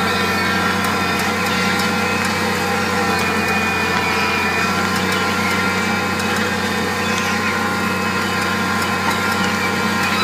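Massey Ferguson 6490 tractor's diesel engine running steadily under load while pulling a six-furrow plough.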